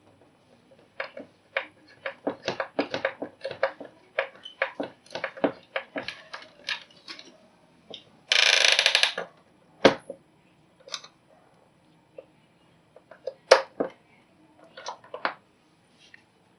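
Irregular clicks and knocks of wires and a hand tool being worked at the input terminals of an analog electric submeter, with one harsh scraping noise lasting about a second just past the middle.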